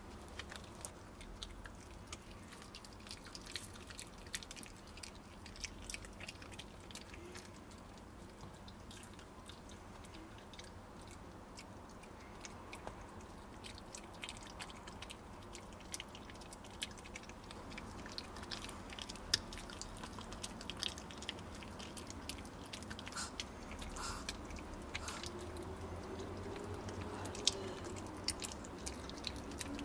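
Maltese dog chewing a dog chew, with a run of small, irregular crunches and clicks.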